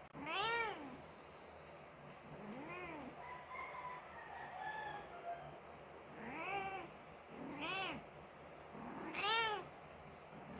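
Persian mother cat meowing five times beside her dead kitten: drawn-out cries that rise and fall in pitch. The first and last are the loudest, and the second is faint.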